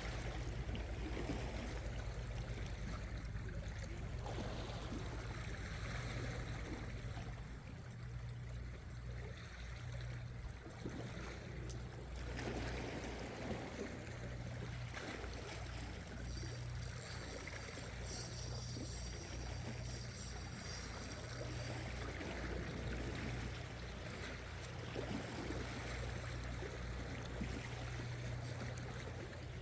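Sea water washing and trickling against shore rocks over a steady low hum. For about five seconds past the middle, a high-pitched pulsing tone sounds over it.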